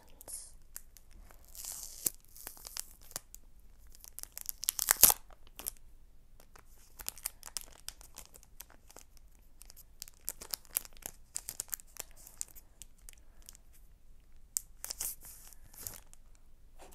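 A small cardboard earbud box being handled and torn open by hand: bursts of paper tearing and crinkling among scattered light clicks and scratches, the loudest tear about five seconds in and another near the end.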